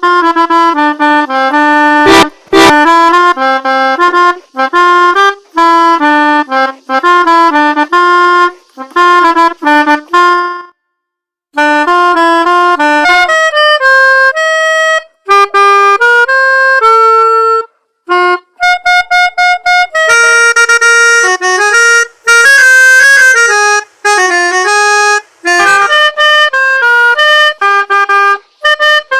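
Melodica (pianika) playing the quick, multi-note jingles of a Basuri 'telolet' bus horn. The notes come in rapid phrases, with a pause of about a second near the middle.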